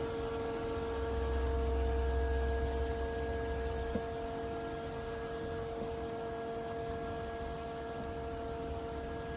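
Robotic lawn mower's electric motor running with a steady whine, over a low rumble that swells for a few seconds; a single click about four seconds in.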